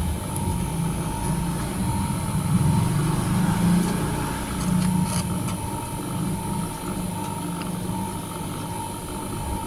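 A motor running steadily, with a constant whine over an uneven low rumble.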